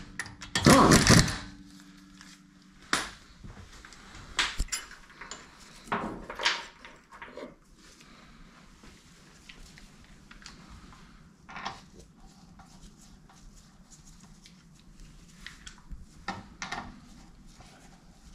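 Air impact wrench running a wheel bolt in briefly, for about the first second, then scattered clunks and clicks as sockets and bolts are handled at the wheel.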